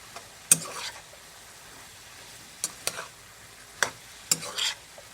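A spoon knocking and scraping against a pot while seasoned vegetables and chicken are stirred, about six irregular clinks and scrapes over a faint steady sizzle from the food cooking.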